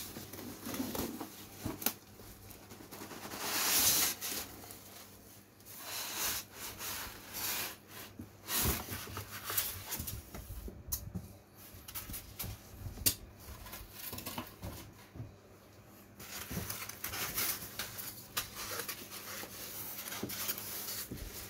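Packaging being handled: an induction cooktop in polystyrene end pieces and bubble wrap is slid out of its cardboard carton, with irregular rustling, scraping and small knocks. The loudest is a longer scraping rustle about four seconds in.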